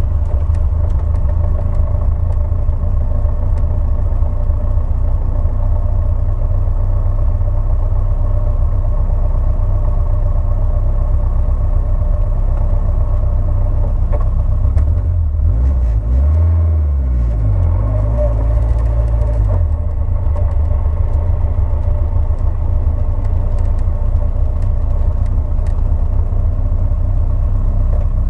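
Car engine running steadily with a low rumble; about sixteen seconds in, its note shifts up and back down for a few seconds before settling again.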